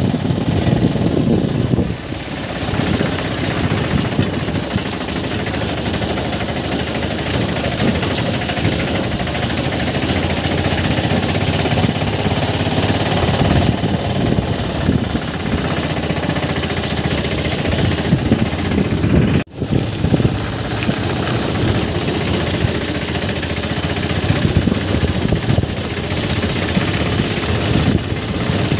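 Motorcycle engine running under way on a rough dirt road, with a steady dense rumble; the sound cuts out for an instant about two-thirds of the way through.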